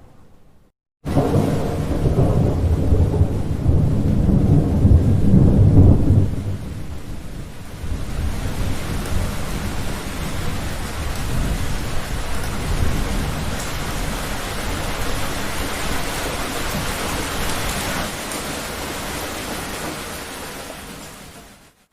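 Thunder rumbling over rain. It starts suddenly about a second in and dies down after about six seconds, leaving steady rain that fades out near the end.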